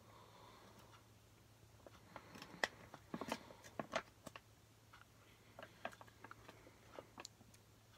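Pages of a paper instruction booklet being flipped by hand: soft rustles and paper clicks, busiest around the middle and sparser near the end.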